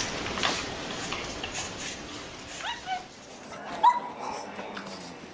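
A dog giving two short, high-pitched yips about a second apart, the second one louder. There is light rustling and clicking earlier on.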